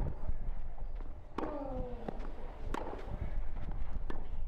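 A tennis rally on clay: the ball is struck by racquets about every second and a half, and one stroke comes with a player's short grunt that falls in pitch.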